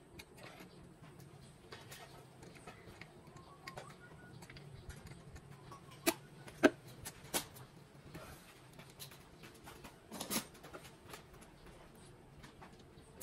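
Small metal parts clinking against each other on a bare engine block as the crankshaft bearing-cap bolts are handled: three sharp clicks about six to seven and a half seconds in, then a short rattle near ten seconds, over a faint background.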